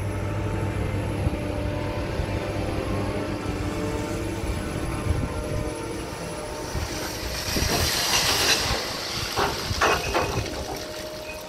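Diesel engine of a Liebherr HS 8130 crawler crane running steadily as it swings its dragline bucket. In the second half comes a loud hiss, then a few metallic clanks from the bucket and its chains as it tips.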